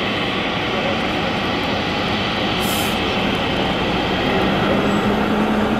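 Boeing 777-300ER's GE90-115B turbofan engines running at taxi power as the airliner taxis: a steady jet rush with a low hum, growing slightly louder in the second half.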